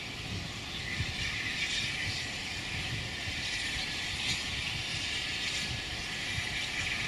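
Standing train giving a steady hiss over a low, uneven rumble.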